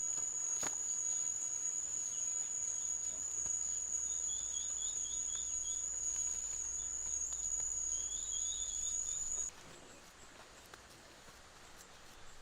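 An insect's steady, high-pitched continuous song, with two short bird twitters partway through; it all cuts off abruptly about nine and a half seconds in, leaving faint background noise.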